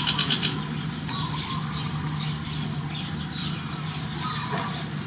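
Outdoor background: a steady low hum, like distant traffic or a running motor, with faint bird chirps scattered through it.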